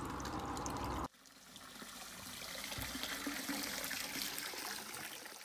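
Water running and splashing into a plastic reservoir barrel; about a second in it cuts off suddenly and a softer trickle of water fades in, then fades out near the end.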